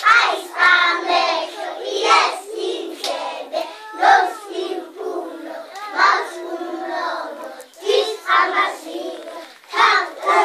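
A group of preschool children singing a song together.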